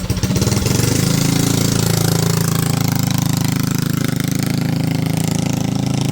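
Small petrol engine on a homemade minibike rising from a pulsing idle to high revs within the first second and holding there steadily: the throttle has stuck open.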